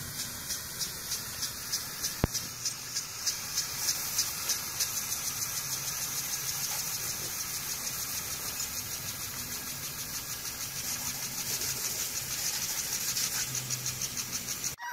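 Impact lawn sprinkler spraying water: a steady hiss with a rhythmic ticking about three times a second.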